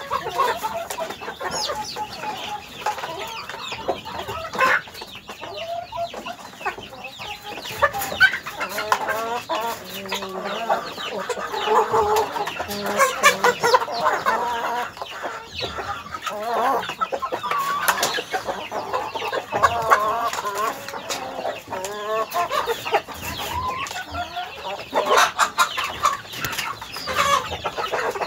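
A flock of domestic chickens clucking, with many short calls overlapping without pause and scattered sharp clicks among them.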